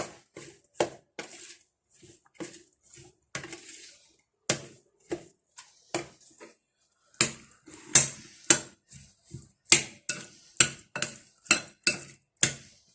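Salad being mixed in a bowl with utensils: repeated clinks and knocks of the utensils against the bowl, sparse at first, then louder and quicker, about two a second, in the second half.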